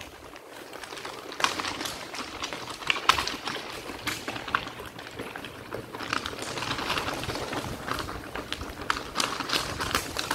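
Bicycle rolling over a rough gravel track: tyres crunching on loose stones and the bike rattling, with many irregular sharp clicks and knocks.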